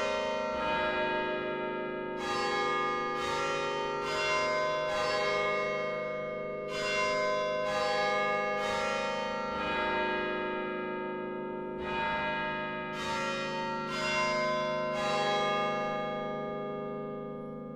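Church bells ringing: separate struck notes in uneven groups of two to four with short pauses between, each note ringing on and overlapping the next.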